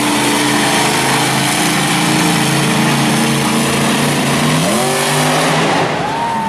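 Monster truck's V8 engine running loud and steady as the truck drives, then revving up about four and a half seconds in and easing off near the end.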